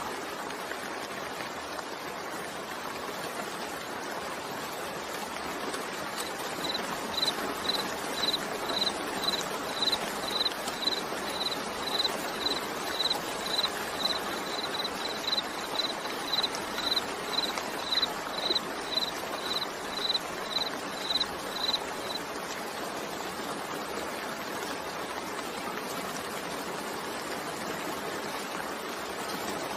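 Steady rain falling. For about fifteen seconds in the middle, a string of short high-pitched beeps sounds at about two a second.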